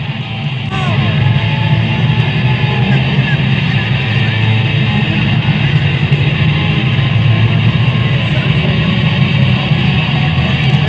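Rock music led by an amplified electric guitar, played live, with a heavy low end running underneath.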